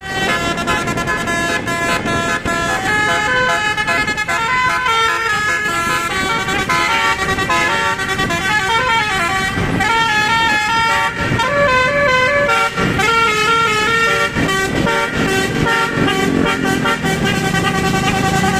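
Bus telolet horn, a basuri-type multi-note musical air horn, playing a quick run of changing notes as a tune over the bus's running engine.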